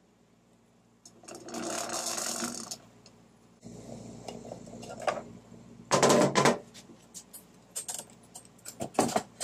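A lawn mower's rear wheel spun by hand on its freshly oiled axle, whirring as it turns freely. It is followed by a louder rattle about six seconds in and several short clicks and knocks.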